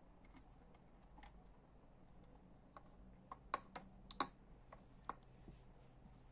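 Quiet workshop room tone with a handful of light, sharp clicks of small parts being handled, bunched together in the middle, the loudest two about three and a half and four seconds in.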